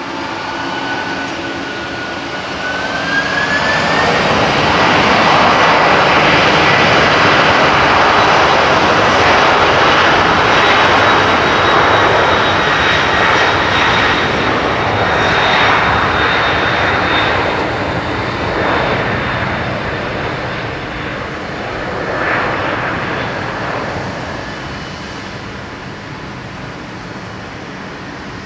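Boeing 767-300 airliner's jet engines spooling up to takeoff thrust, a whine rising in pitch over the first few seconds, then a loud, steady jet roar through the takeoff roll that slowly fades as the aircraft moves away down the runway.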